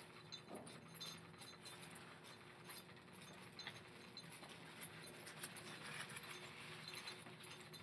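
Near silence: faint room tone with a low steady hum and scattered faint light ticks.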